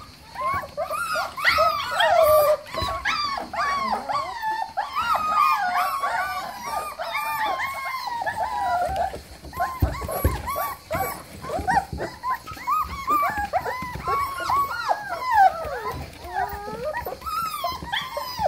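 Four-week-old Rottweiler puppies whining and yelping together, many short high-pitched cries that rise and fall and overlap one another.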